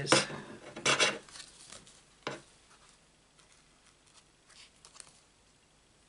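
Handling of a paper card on a craft mat: two short scraping rustles in the first second or so, a sharp click a little after two seconds, then only faint small handling noises.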